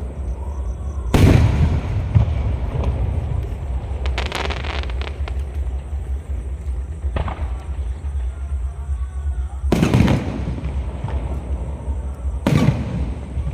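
Aerial firework shells bursting overhead: three loud booms, about a second in, near ten seconds and near the end, with a short run of crackling pops around four seconds and a single pop near seven, over a steady low rumble.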